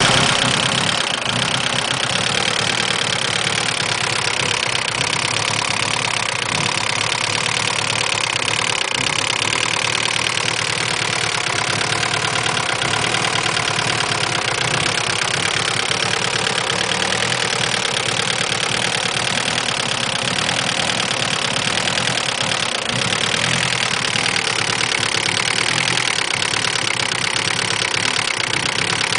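Turbocharged DSM's 4G63 four-cylinder engine idling steadily with a fast, regular ticking from the top end, which the owner takes for a bad lifter.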